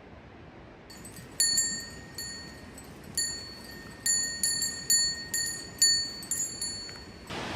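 A small metal bell or chime, struck about a dozen times at irregular intervals, each strike ringing out with the same high, clear tones. Near the end the sound cuts abruptly to a louder steady hiss of rain.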